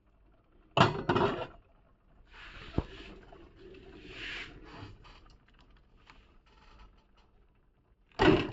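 Vintage Eterna Mignon espresso machine being run: two short loud bursts of noise, about a second in and near the end, with a softer hissing stretch and a sharp click in between.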